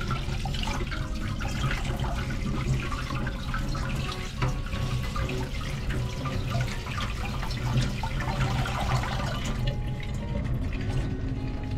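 Kitchen tap running through a spray head onto leafy greens being rinsed by hand, water splashing into a stainless steel sink. The flow stops about ten seconds in.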